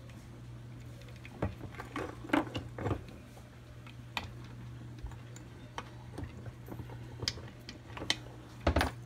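Transmission gears, shafts and crankcase parts of a Kawasaki KE100 engine clinking and knocking as they are handled and lifted out: scattered light metal clicks and knocks, the loudest about two and a half seconds in and near the end, over a steady low hum.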